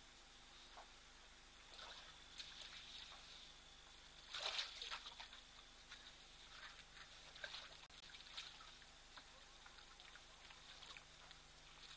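Water trickling and splashing as African elephants drink at a waterhole, their trunks dipping into and drawing from the shallow water, with the loudest splash about four and a half seconds in.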